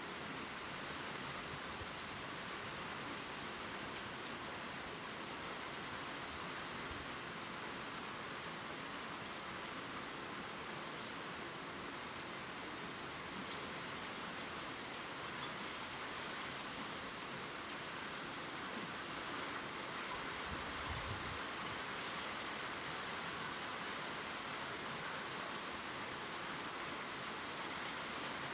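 Steady gentle rain pattering on leaves, an even hiss with a few distinct drops ticking now and then.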